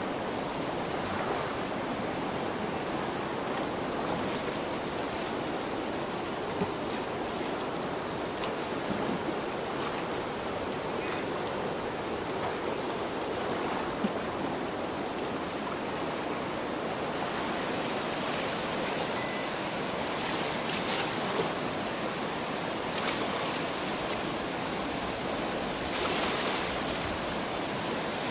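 River water rushing over rocks in rapids, a steady, even rushing.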